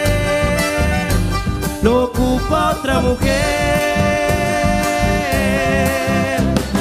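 Live chamamé band playing: violins and accordion carrying long held notes that slide between pitches, over a steady bass and drum beat.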